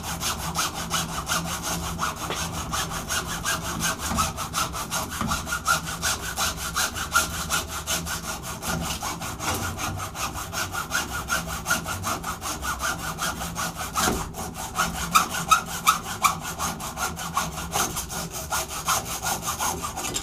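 Hand hacksaw cutting through the copper windings of an electric motor stator, in fast, steady back-and-forth strokes. The sawing stops abruptly at the very end as the cut goes through.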